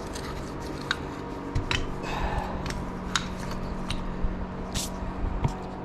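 Scattered light clicks and clinks of small metal parts being handled on a workbench, over a steady low hum.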